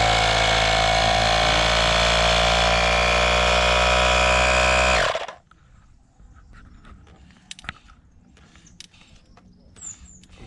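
Portable car tyre compressor running as it pumps air into a mountain-bike air rear shock absorber, a steady motor buzz that stops after about five seconds. A few faint clicks follow.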